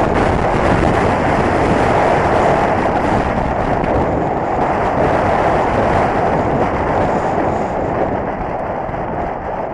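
Strong wind buffeting the microphone of a camera riding along on a mountain bike: a loud, steady rushing rumble that eases slightly near the end.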